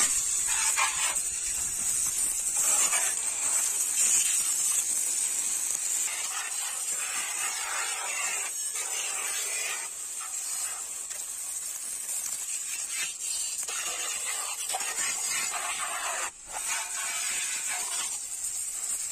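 Water jet from a homemade washer pump, an RO purifier's booster motor run on a 24-volt battery, spraying onto a motorcycle's wheel, engine and body panels. It makes a steady high hiss, with the splashing noise changing as the jet moves over different surfaces. It cuts out briefly near the end.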